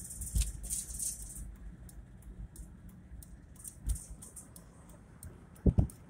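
Steady low rumble of a moving car heard from inside the cabin, with scattered rattles and short knocks, and a sharp double knock near the end.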